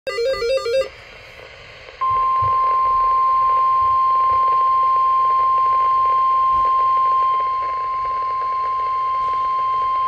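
Weather-band scanner radio's speaker sounding a NOAA Weather Radio emergency alert: the end of the SAME header's warbling digital data burst, a brief pause, then the single steady 1050 Hz warning alarm tone from about two seconds in. The alert announces a tornado warning.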